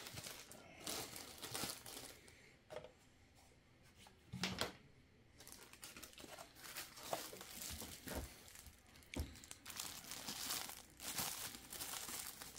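Clear plastic bags crinkling and rustling as they are handled and folded around small figurines, with a few short knocks. The rustling is sparse for the first few seconds and busier in the second half.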